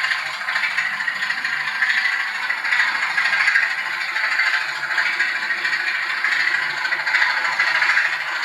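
Bachmann OO gauge Class 25 model diesel locomotive running on a model railway track: a steady rattling, scraping noise that swells and fades.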